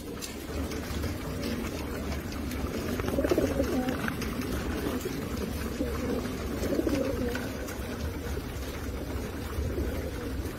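Racing pigeons cooing in their loft, several low calls overlapping, louder about three seconds in and again around seven seconds.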